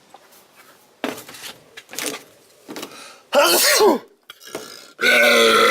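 A man burping loudly: a shorter burp wavering in pitch in the middle, then a long, steady burp near the end, after a few short rough noises.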